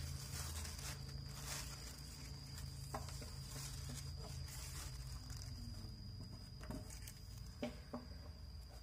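Thin plastic sheet rustling as it is spread out, followed by a few light knocks and clicks as a cardboard box and a metal lamp holder are handled.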